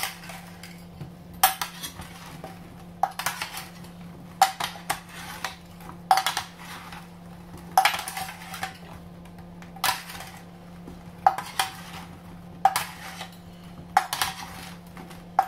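Two metal spoons scraping and clinking against a metal roasting tray as oiled potato chunks are tossed and mixed. The clatter comes in short bursts about every second and a half, over a steady low hum.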